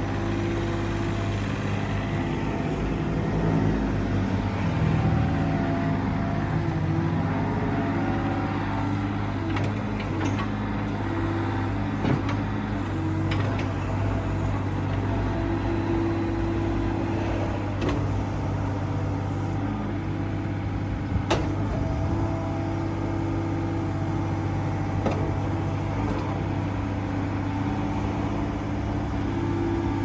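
Yanmar B27 mini excavator's three-cylinder Yanmar 3TNE82A diesel running steadily while the boom, arm and bucket are worked hydraulically. The engine note shifts in pitch and strength as the hydraulics take load, with a few sharp knocks, the clearest about two-thirds of the way through.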